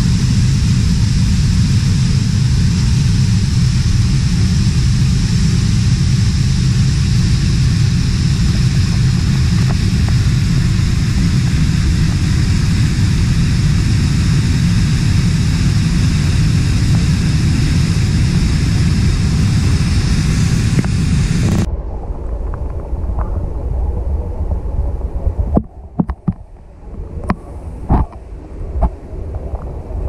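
Steady rushing of a rocky rainforest stream and waterfall. About two-thirds of the way through it cuts off suddenly to a quieter, muffled underwater sound with scattered sharp clicks and knocks.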